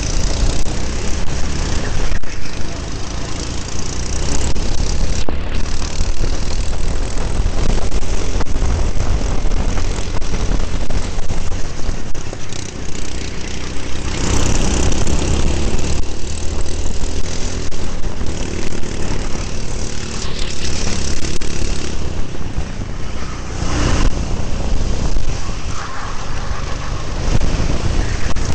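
Go-kart engine running at racing speed under an onboard camera, its note swelling and easing through the corners, mixed with heavy wind and vibration noise on the microphone.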